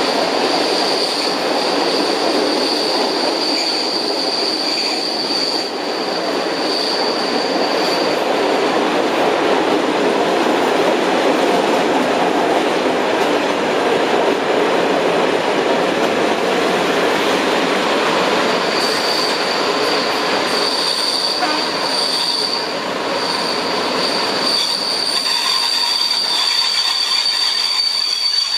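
Passenger train heard from an open carriage window as it runs along the track: a steady rumble and clatter of wheels on rails. A thin, high, steady wheel squeal runs over it for the first several seconds, stops, and comes back about two-thirds of the way through as the train pulls into a station.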